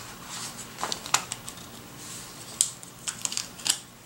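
Paper sticker sheet rustling and crackling as a sticker is peeled off its backing, in a scatter of short, crisp crackles and ticks.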